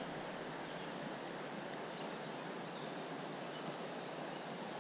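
Steady hiss of running creek water, with a couple of faint high chirps.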